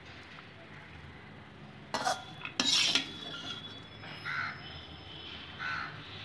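Steel spatula scraping a stainless steel pan and clattering against the serving bowl as cooked beetroot poriyal is scooped out, with two short scrapes about two and three seconds in.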